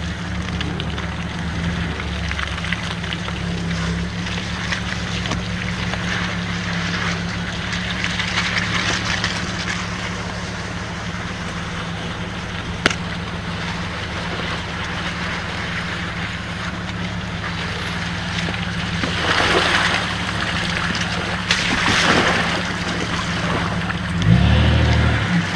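Jeep Cherokee XJ engine running steadily at low revs while the truck crawls through a creek, with water rushing and splashing around it. The splashing surges twice, about twenty and twenty-two seconds in, and the engine revs up near the end.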